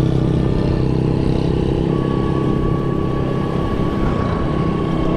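Small motorcycle engine running steadily at a cruise, heard from the rider's seat, with a low rumble under it; a faint steady whine comes in about two seconds in.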